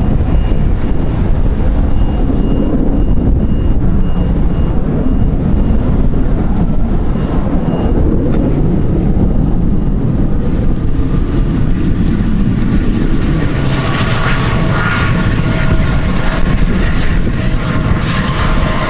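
Wind buffeting the microphone with a loud, steady low rumble. In the second half, the engines of a passing airliner rise over it with a steady whine and hiss.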